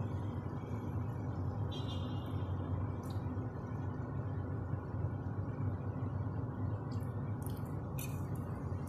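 Steady low background hum, with a few faint light clicks of a metal fork against a ceramic plate, most of them near the end.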